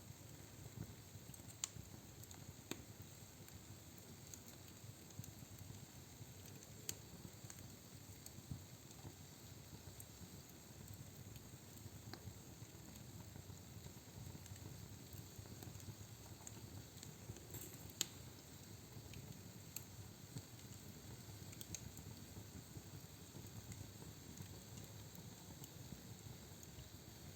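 Log fire burning in a fireplace: a faint, steady low rumble of flames with scattered sharp crackles and pops from the burning logs, the loudest pop about eighteen seconds in.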